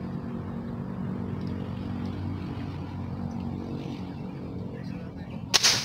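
Single sharp crack of an airgun firing a line-tethered fishing arrow about five and a half seconds in, over a steady engine hum.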